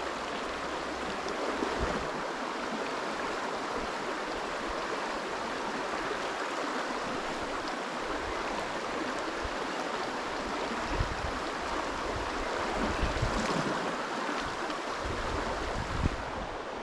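Fast river current rushing steadily over stones, with a few brief low rumbles.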